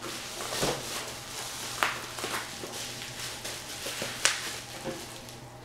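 Plastic bubble wrap rustling as a wrapped box is handled and unwrapped, with a few sharp crackles, the strongest about two seconds and four seconds in.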